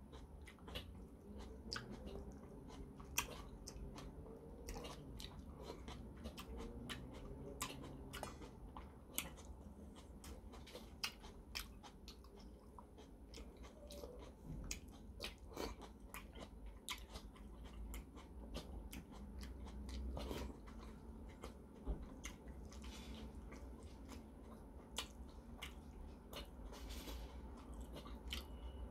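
A person chewing and eating jjajangmyeon noodles with tomato and pork close to the microphone. The chewing is soft and wet, with frequent sharp, irregular mouth clicks.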